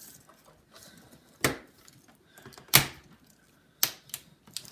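Sharp plastic clicks and snaps, about five of them, the loudest near the middle, as a laptop's plastic cover is pried up with a spudger and its clips pop free.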